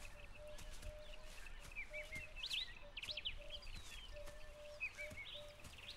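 Wild birds chirping and calling in open bush, with quick rising and falling whistles clustered around the middle. Under them runs a repeated short low note, two or three a second.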